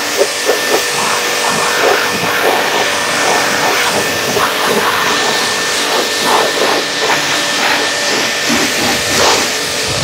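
BTALI BT 1100 electric pressure washer blasting a high-pressure water jet against a car's muddy lower door panels: a steady hiss of water spattering on the bodywork, with a faint steady whine from the machine underneath.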